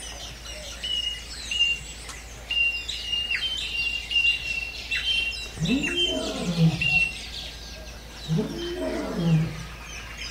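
A chorus of birds singing and chirping, used as a natural-setting sound effect. Twice, about six seconds in and again near the end, a lower call rises and falls over about a second.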